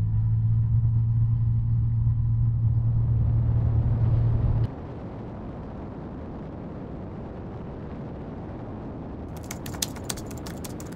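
Light aircraft's engine and propeller running at takeoff power, a loud steady drone. It cuts off abruptly about four and a half seconds in, giving way to steady wind rush, with a run of sharp clicks near the end.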